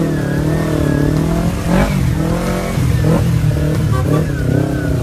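Scooter and motorcycle engines revving in close traffic, their pitch rising and falling as the riders speed up and slow down, with a short louder burst about two seconds in.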